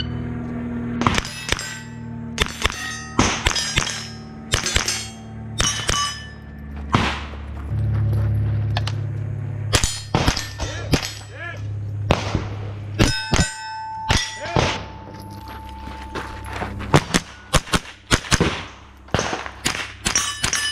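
Strings of gunshots at steel targets, first from a handgun and later from a rifle. Many shots are answered by the ringing clang of a struck steel plate, one ringing on for about two seconds midway.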